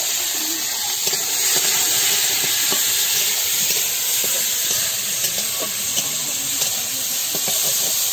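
Chopped tomatoes sizzling in hot oil in a metal wok, stirred with a long metal spatula that scrapes and clicks against the pan.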